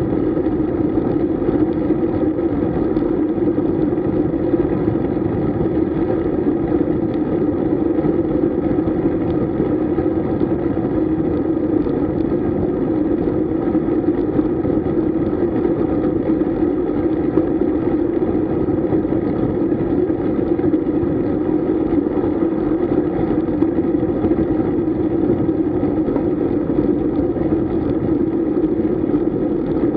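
Steady rush of wind and tyre noise picked up while riding a road bike, an unbroken drone with a strong mid-low hum that holds level throughout.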